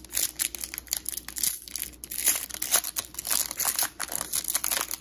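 Foil wrapper of an Upper Deck hockey-card pack being torn open and crinkled by hand: a dense, irregular run of crackles.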